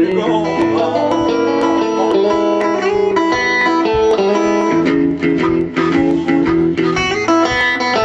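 Blues guitar playing an instrumental passage of picked notes over held low notes.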